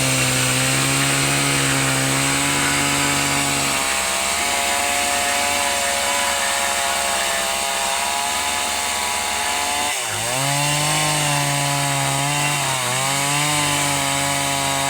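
Two-stroke chainsaw running steadily while cutting a log lengthwise into planks. Its engine pitch dips sharply about ten seconds in and again briefly near the end, then picks back up, as the chain bogs under the load of the wood.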